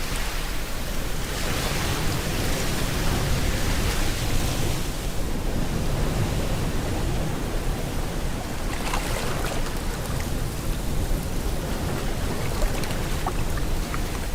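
Rain and ocean surf together: a steady hiss of rain with waves swelling and washing in, once early on the crest a few seconds in and again about two-thirds of the way through.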